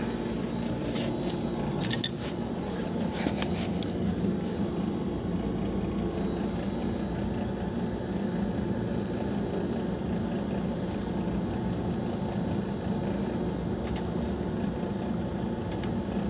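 Small metallic clicks and taps of a screw and screwdriver being handled while an earth wire is fastened, the sharpest about two seconds in, over a steady low hum.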